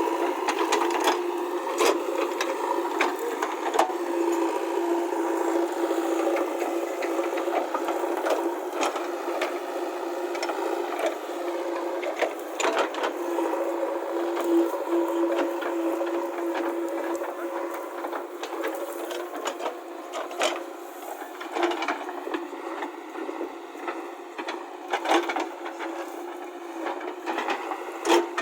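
JCB backhoe loader's diesel engine running steadily, with scattered knocks and clatter from the machine working gravel.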